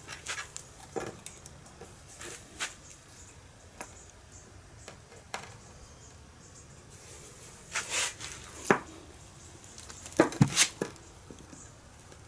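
Scattered small metal clicks and knocks as a steel split lock washer is handled on a concrete floor and set in the jaws of a bolt cutter. The loudest knocks come about eight seconds in and again about ten seconds in.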